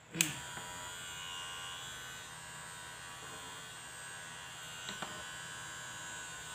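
Kemei KM-2600 electric hair clipper switched on with a click, then running with a steady buzz; its motor sounds somewhat rough rather than smooth. A small click about five seconds in.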